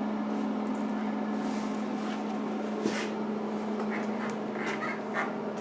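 Steady low hum, with a few faint light taps, clicks and soft rubs as a fiberglass motorcycle tail section is handled and lined up against the bike; the sharpest click comes about three seconds in.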